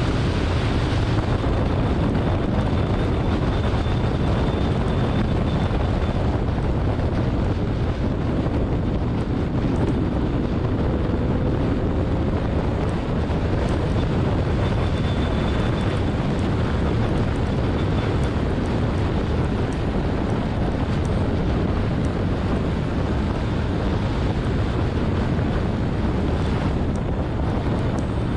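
Steady wind rush over the microphone of a low-mounted action camera on a car at track speed, with road and tyre noise and the car's running gear underneath.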